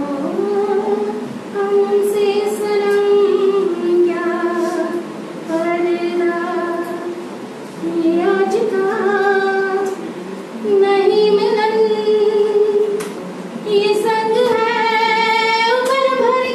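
A woman singing solo into a microphone in slow phrases of long held notes. The last note, near the end, wavers.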